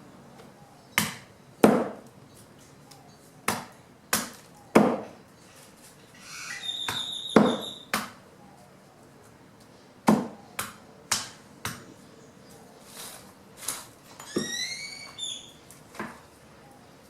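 Fallen branches being chopped by hand into wood chips: about a dozen sharp chopping blows at an uneven pace. A bird calls briefly twice, in the middle and near the end.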